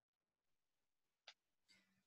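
Near silence: room tone, with one faint click just over a second in.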